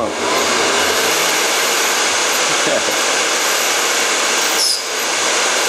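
A 3-horsepower spindle on a small CNC milling machine runs near 6,500 RPM while its end mill cuts a metal plate, making a loud, steady noise with a faint high whine. Much of the noise comes from the cooling fan of the enclosed, drip-proof spindle motor, which turns at almost 11,000 RPM. The noise dips briefly, with a short falling whistle, about five seconds in.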